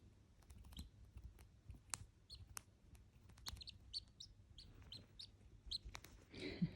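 Duckling peeping: short, high chirps at irregular intervals, some dipping in pitch, with soft clicks between them. A louder breathy sound with a low note comes near the end.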